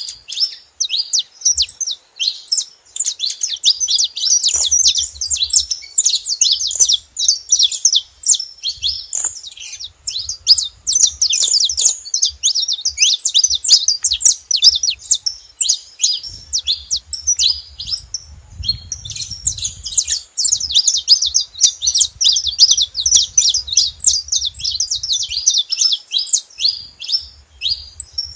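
Saffron finch giving a long, unbroken run of rapid, high-pitched chirping notes.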